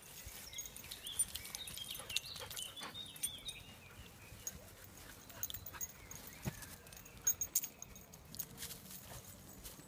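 Dogs out on a woodland walk: footsteps and scuffing on a dirt track, with scattered short clicks and knocks. Birds call in the first three seconds.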